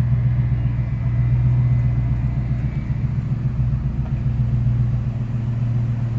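Pickup truck engine running steadily at low speed as the truck rolls slowly past, a constant low drone.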